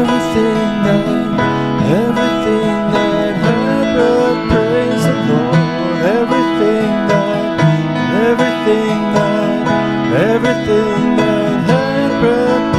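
Instrumental introduction to a worship song: plucked string accompaniment under a melody whose notes repeatedly slide upward into pitch.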